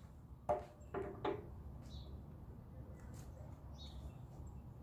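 Three short knocks in quick succession about a second in, then a few faint bird chirps.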